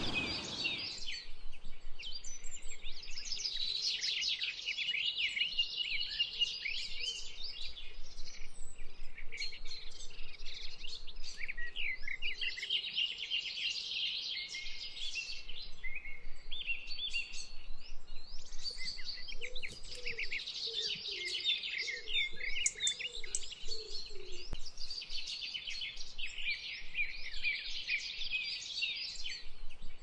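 A dense chorus of songbirds singing, with many overlapping high chirps and trills. A lower call repeats several times in a row around two-thirds of the way through. A broad rushing noise fades out within the first second.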